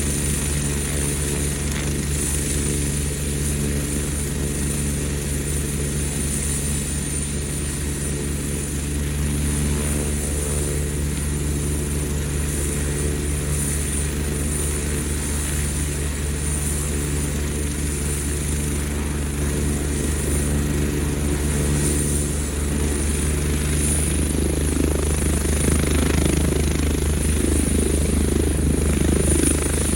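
Eurocopter EC145 twin-turboshaft helicopter running on the ground, with the steady beat of the turning rotors under a thin, high turbine whine. It grows louder over the last few seconds as power comes up.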